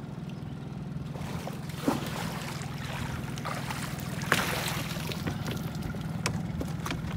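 Water splashing as a big flathead catfish thrashes in a landing net and is lifted out of the lake into a boat, with a sharp splash about two seconds in and a louder one a little past four seconds. A steady low hum runs underneath.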